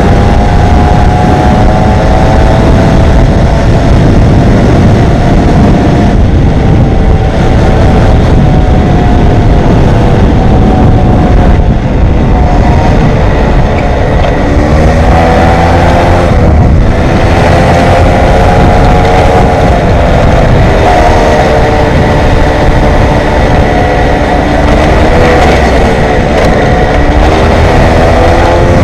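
Stock Peugeot 103 SP moped's 50 cc two-stroke single-cylinder engine running under way, its pitch rising and falling with speed, dropping about halfway through as it slows and then climbing again as it picks up. A low wind rumble on the helmet-mounted microphone runs under it.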